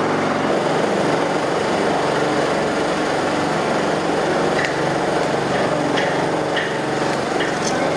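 Steady small-motor drone, with a few faint clicks in the second half.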